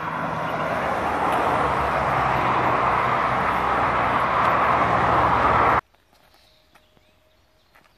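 Road traffic on a busy highway running close by, a steady rushing noise with a low engine hum that grows louder as vehicles approach. It cuts off suddenly about six seconds in, leaving it much quieter.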